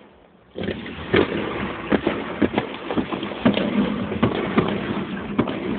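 Fireworks going off in a rapid barrage: many sharp bangs and crackles over a continuous rumble, starting abruptly about half a second in.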